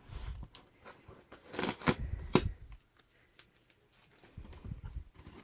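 A taped cardboard shipping box being handled and opened by hand: scraping, tearing and crinkling of cardboard and packing tape, with dull thumps of the box being gripped. The loudest rips come about two seconds in.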